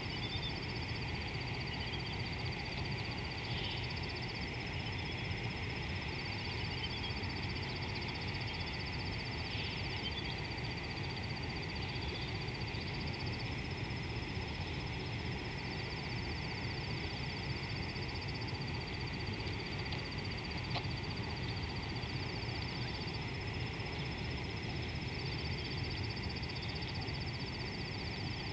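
Riverside bush ambience: a steady low rush under a constant high hiss, with two high buzzing trills that take turns every few seconds, and a few faint bird calls in the first ten seconds.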